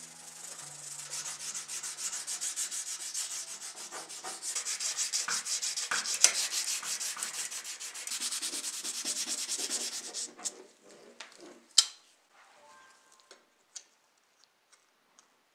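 Sandpaper rubbed rapidly back and forth over a bare metal model car part: a steady scratchy hiss of quick strokes. The sanding stops about ten seconds in, leaving a few light clicks and taps, one sharper click about two seconds later.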